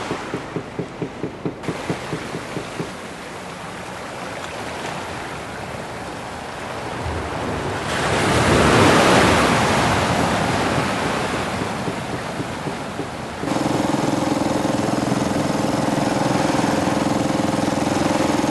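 Sea noise from waves on a rocky shore, swelling loudest about halfway through, with a small open fishing boat's motor: a regular pulsing beat of about four a second at first, and from about two-thirds in a steady engine hum.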